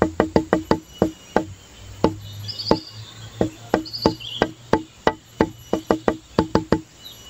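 Background music built on a quick wooden knocking beat like a wood block. The beat thins to a few scattered knocks in the middle, then picks up again near the end. A few short high chirps sound over it.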